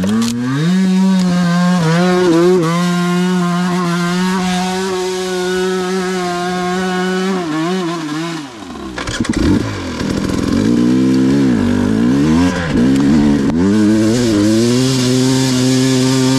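Two-stroke dirt bike engine under riding load, held at high steady revs for about eight seconds. It then drops off as the throttle closes, and is blipped up and down several times before pulling steadily again.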